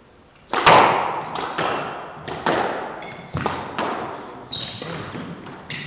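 Squash rally: a run of sharp smacks of the ball off racket, front wall and floor, starting about half a second in, each ringing on in the enclosed court, the loudest near the start. Short sneaker squeaks on the wooden floor come in among them.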